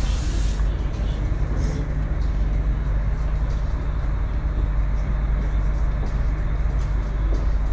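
Steady low vehicle rumble with a noisy hiss over it, unbroken throughout.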